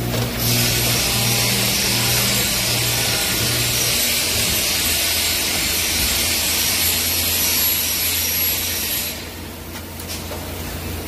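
Steel grating multi-point welding machine running: a loud, steady hiss over a low electrical hum. The hum pulses evenly for the first few seconds, and the hiss cuts off about nine seconds in.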